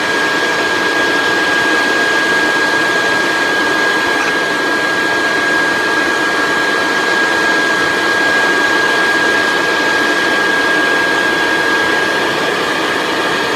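Handheld leaf blower running steadily at close range: a continuous rush of air with a steady high whine.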